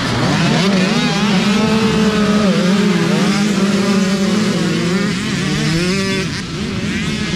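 A pack of youth dirt bikes accelerating hard off the start line, several engines revving at once as the bikes pass close by one after another.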